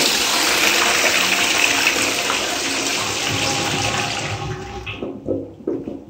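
Flushing toilet: water rushes from the cistern into the bowl in a steady swirl, then dies away about five seconds in, with a few brief gurgles as the bowl settles.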